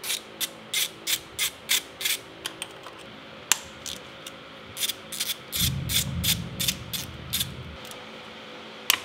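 Hand ratchet clicking as T30 Torx bolts are backed out of a high-pressure fuel pump: about three clicks a second for the first two seconds, then shorter, irregular runs of clicks. A low rumble runs for about two seconds past the middle.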